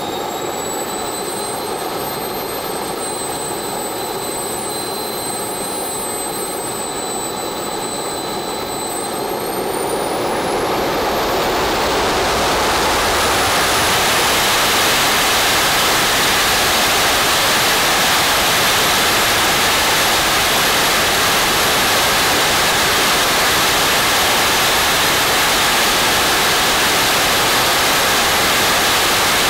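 Small RC turbine jet engine whining steadily at low speed, then spooling up to full throttle about ten seconds in. The whine climbs in pitch and fades as a loud, steady exhaust rush takes over, with a thin high tone on top.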